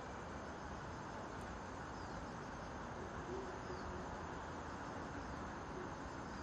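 Steady background noise beside the tracks, with faint short high chirps of a small bird every second or two.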